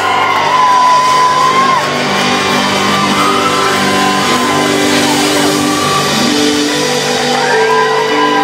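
Live country-rock band playing an instrumental passage: fiddle melody over acoustic guitar and long held bass notes, with audience whoops and shouts over the music.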